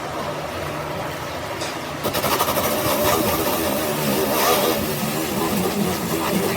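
An engine running steadily, growing louder and harsher about two seconds in.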